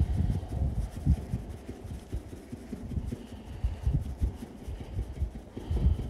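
A hand patting and drumming on the wire fan grille of an outdoor air-conditioning unit, making dull, low thumps at an uneven pace.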